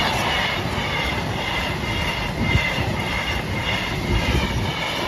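Freight train passing over a level crossing with a heavy low rumble and wagon clatter. Over it, the crossing's warbling alarm sounds in short, quickly alternating high tones. The train noise begins to die away near the end.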